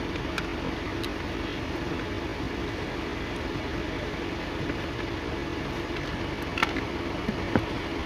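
Old Ford Ranger's air-conditioning system running, a steady mechanical hum with an even hiss. A couple of short sharp clicks come near the end.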